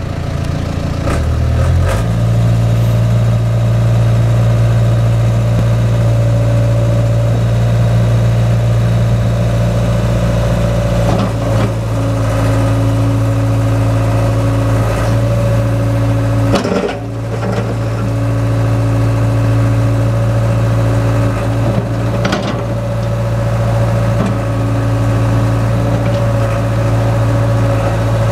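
1996 Caterpillar 307 excavator's diesel engine running steadily, stepping up in pitch about two seconds in, with a higher hydraulic whine that comes and goes three times as the boom, arm and bucket are worked. A few sharp knocks sound along the way.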